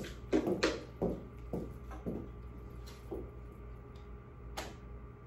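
Faint, distant voice-like sounds in the first two seconds, then a few short sharp clicks or knocks, the sharpest about four and a half seconds in.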